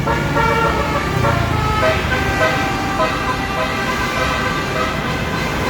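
A bus's Basuri telolet horn, a multi-tone air horn, playing a tune as a run of short stepped notes over traffic rumble.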